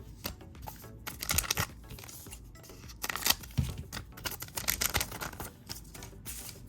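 A trading-card pack wrapper being torn open and crinkled, in several short irregular bursts of tearing and rustling.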